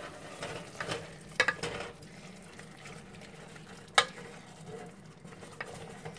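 Wooden spoon stirring chicken pieces in a stainless steel pot, scraping and knocking against the pot's sides over a low frying sizzle. The sharpest knock comes about four seconds in.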